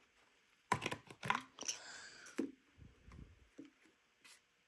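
Light handling noises: a scattered run of small clicks, taps and rustles through the first three and a half seconds, then it goes nearly quiet.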